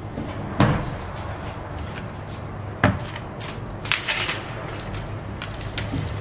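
Kitchen handling sounds over a steady low hum. Two sharp knocks on the counter come about half a second and about three seconds in as the meat trays are moved. About four seconds in there is a short crackle of plastic cling film as a knife slits the wrap on a foam tray of pork.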